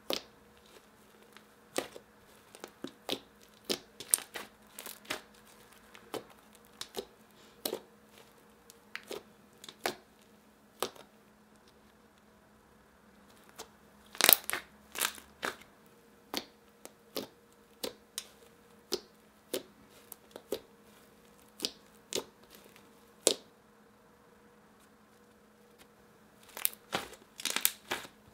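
Soft pink butter slime being poked and squeezed by fingers, clicking and popping irregularly, with busier runs of pops about halfway through and again near the end.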